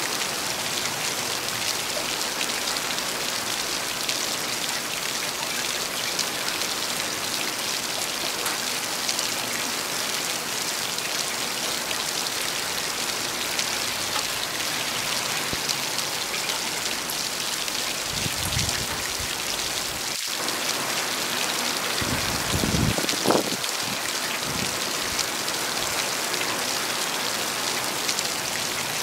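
Steady heavy rain: an even hiss of rainfall. About two-thirds of the way through it is broken by a few brief low thumps, the loudest near the end of that stretch.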